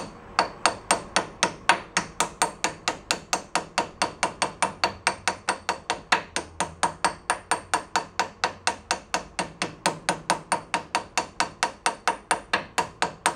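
Small hammer tapping steadily, about three light metal taps a second, to drive a new bearing onto the axle stub of a VW Type 2 bus rear gear reduction box.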